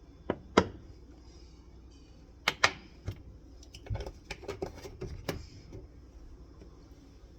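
Sharp plastic clicks and light knocks from hands working a Sumsaty home espresso machine while setting up the steam wand. Two clicks come just after the start, a loud pair about two and a half seconds in, then a run of softer taps and clicks, over a low steady hum.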